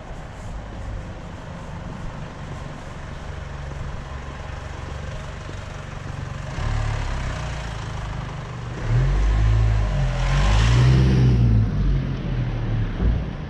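A Mercedes-Benz A-Class hatchback drives past close by from behind and on ahead down the street. Its engine and tyre noise are loudest about ten to eleven seconds in, then fade as it moves away, over a steady low hum of city traffic.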